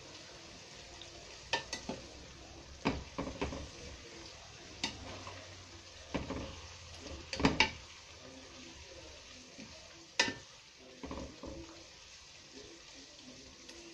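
A utensil scraping and knocking against a square pan as sliced onions and red peppers are turned over, with a faint steady sizzle of frying. The knocks come irregularly, loudest about seven and a half seconds in and again around ten seconds in.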